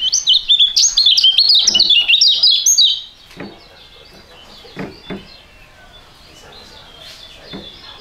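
A white-eye (kecial) songbird singing a fast, loud burst of high, rapidly changing chirps for about three seconds, then only quieter scattered chirps. A few soft thumps are also heard after the burst.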